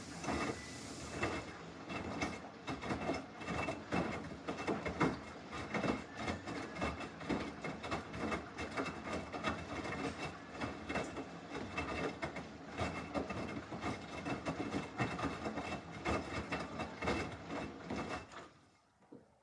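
Samsung washing machine mid-wash on a normal cycle, the drum turning with a busy, irregular clatter of knocks over a rushing noise. It stops abruptly about eighteen seconds in.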